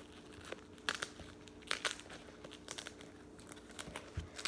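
Rustling, crinkling handling noise from a sneaker's strap and upper being worked by hand, with short scattered scrapes as a strap is pushed through a loop.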